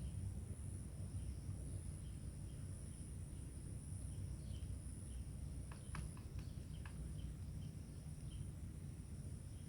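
Insects calling in a steady high-pitched drone, with short faint chirps repeating about twice a second. A few quick clicks come about six seconds in.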